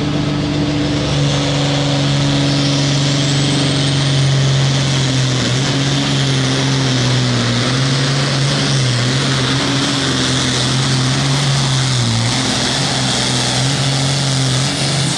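John Deere 6030 pulling tractor's turbocharged diesel engine running flat out under load as it drags the pulling sled. A steady, loud, deep drone with a hiss above it, wavering slightly in pitch and easing off just at the end.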